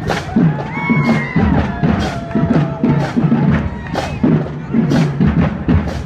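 School marching band playing a drum-driven parade tune: a steady beat of sharp drum hits over low pulsing notes, with a brief high call about a second in.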